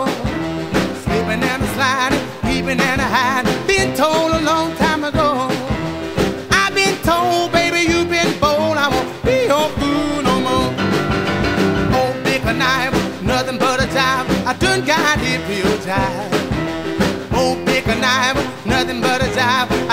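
Upbeat background song with singing, guitar and a steady beat.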